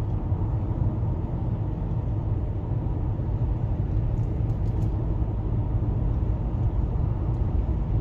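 Steady low rumble of a car driving, heard inside the cabin: tyre and engine noise at an even cruising speed.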